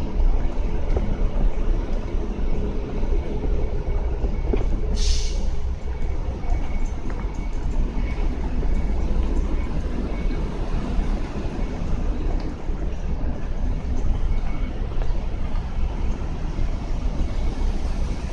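Outdoor ambience by a railway station: a steady low rumble of road traffic and station noise, with a short hiss about five seconds in.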